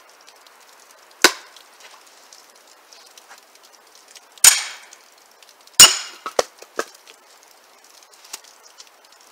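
A splitting axe chops into a log round once, then a sledgehammer strikes the back of the lodged axe twice, each blow a sharp metal clang with a brief ring. A few lighter knocks follow as the wood gives way.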